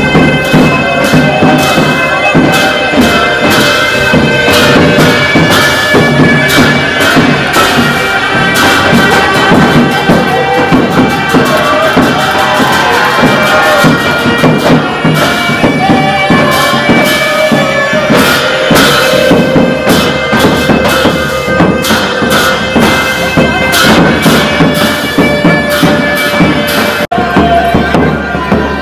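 Traditional Tibetan ceremonial music: a sustained, reedy wind-instrument melody over steady drum beats. It breaks off abruptly near the end and different music follows.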